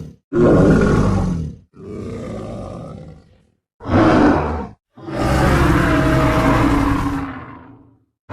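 Dinosaur roar sound effects made for Einiosaurus: four separate roars, the second quieter, the last the longest at about three seconds and fading out.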